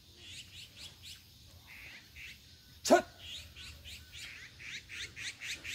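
Small birds chirping in quick, repeated short notes that grow busier toward the end, with one short, loud, bark-like cry about three seconds in.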